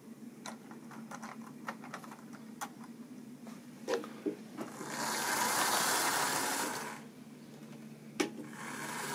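OO-gauge model railway diesel locomotive running on track, its small electric motor whirring loudest as it passes close by about halfway through and again near the end, with light clicks from the wheels over rail joints earlier on and a steady low hum beneath.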